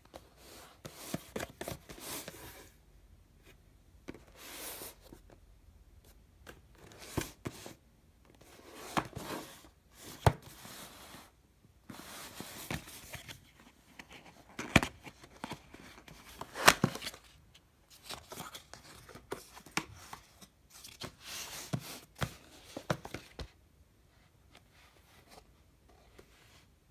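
Cardboard retail box being handled and opened: fingers rubbing, scraping and prying at the box's end flap, with sharp taps and clicks of the cardboard, in irregular bursts that stop a few seconds before the end.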